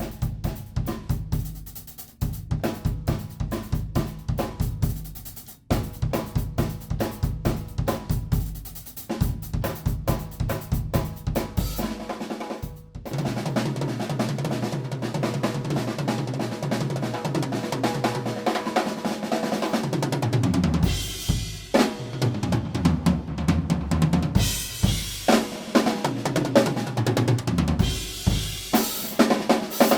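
Acoustic drum kit played solo: quick patterns of bass drum, snare and cymbal strikes, then from a little under halfway a dense, almost unbroken roll around the drums with the low tones stepping up and down.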